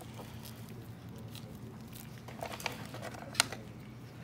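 Faint handling sounds of gloved hands working a fish carcass on a dissecting tray: a few soft taps, then one sharp click about three and a half seconds in, over a steady low hum.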